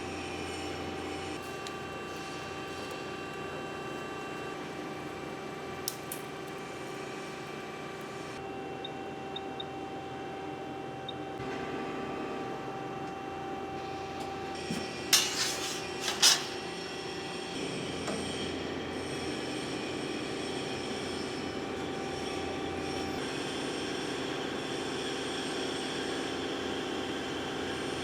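Steady hum of a sheet-metal bending machine running, with two sharp metallic clanks about halfway through.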